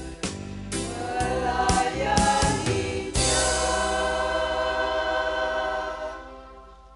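Vocal group singing a Christian gospel song in harmony, closing on one long held final chord that fades away near the end.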